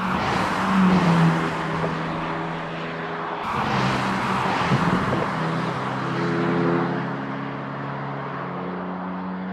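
BMW M3 and M4 Competition twin-turbo straight-six engines and exhausts running hard as the cars drive past at speed. The engine note holds and steps in pitch, and the sound changes abruptly about three and a half seconds in.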